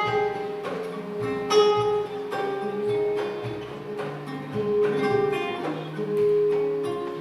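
Acoustic guitar music: a slow passage of single plucked notes that ring on, over low bass notes.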